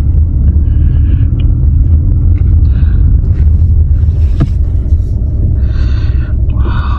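A steady, loud low rumble, with a sharp click about four and a half seconds in and brief faint voices near the end.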